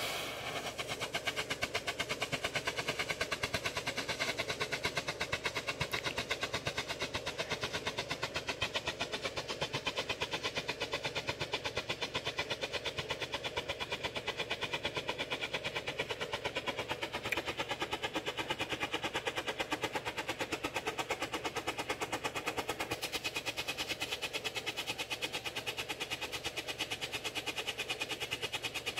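A white hand-held strobe flare (SMOKE-X Hand-Flash) burning. It gives a short pop with every flash, in a rapid, even pulse many times a second over the hiss of the burn.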